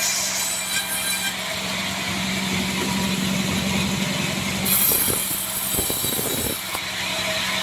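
Sawmill band saw running with a steady motor hum while its blade cuts through a Bayur log, with a brighter high hiss at the start and again about five seconds in.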